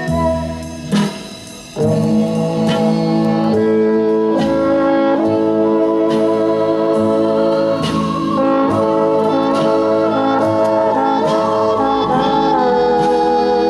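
Recorded instrumental music with long held notes, played at a steady level through Celestion SL6si bookshelf speakers driven by an RCF AM-30 vintage tube amplifier, heard in the listening room.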